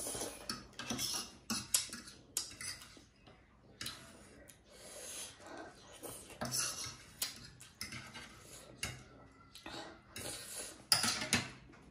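Close-up eating of Samyang Korean instant noodles: repeated slurps and chewing, with metal forks scraping and clinking on the serving tray in a few sharp clicks, the loudest near the end.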